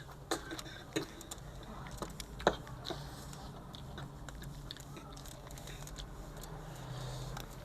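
Irregular sharp clicks and taps of eating, such as utensils tapping a bowl and mouth sounds, spaced roughly half a second to a second apart, over a steady low hum.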